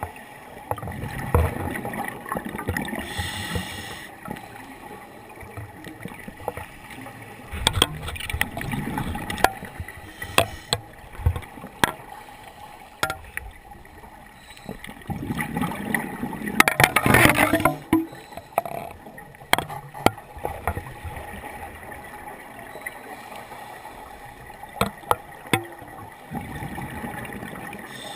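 Scuba diver breathing through a regulator underwater: exhaled bubbles gurgling in swells every several seconds, the loudest near the middle, with scattered sharp clicks.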